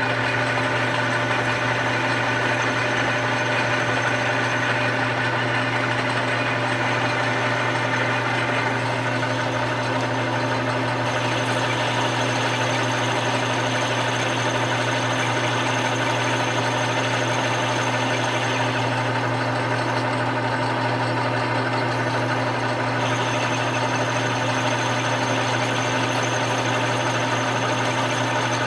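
Machine tool running steadily under power with a constant motor hum, its cutter feeding into steel to cut pinion gear teeth. The higher-pitched cutting noise changes a little about a third and about four-fifths of the way through.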